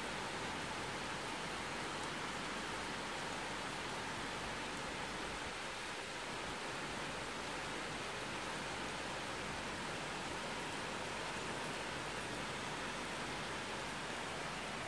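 Heavy thunderstorm rain falling steadily, an even wash of downpour noise with no thunder.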